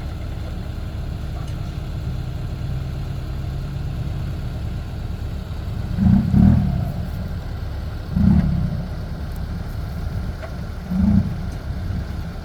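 Heavy diesel engine running with a steady low rumble, swelling briefly three times: about six, eight and eleven seconds in.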